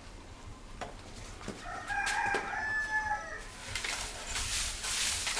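A rooster crows once, a call of about a second and a half starting about two seconds in. It is followed by a run of scratchy strokes.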